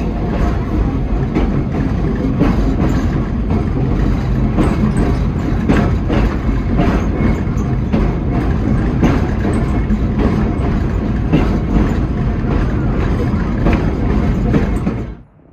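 Pacific Electric 'Blimp' interurban electric coach running along the track, a steady rumble with frequent clicks of the wheels over rail joints. The sound cuts off suddenly near the end.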